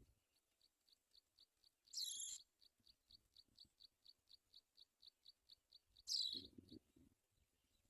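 Faint, steady high ticking, about four ticks a second, with two short, louder high bird calls, one about two seconds in and one about six seconds in; low rustling follows the second call.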